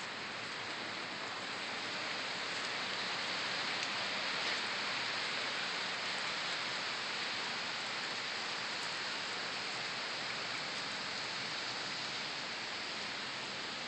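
Steady light-to-moderate rain falling on standing floodwater and wet pavement: an even hiss.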